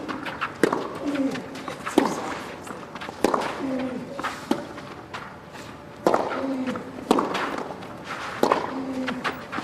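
Tennis ball struck back and forth by rackets in a baseline rally, about one hit a second, with a player's short low grunt on several of the shots.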